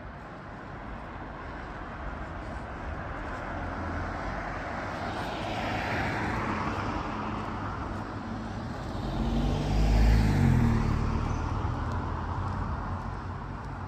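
Road traffic passing close by: one car goes by about six seconds in, then a louder vehicle about ten seconds in, its engine hum dropping in pitch as it passes.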